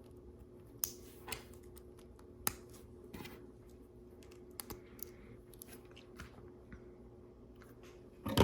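Plastic LEGO bricks clicking as pieces are handled and pressed together: a scattering of small, sharp, irregular clicks over a faint steady hum.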